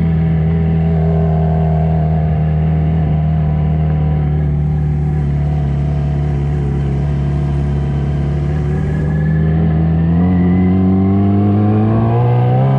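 Yamaha XJ6's 600 cc inline-four motorcycle engine running under the rider at a steady, low engine speed, then revving up as the bike accelerates about ten seconds in, the pitch rising until near the end.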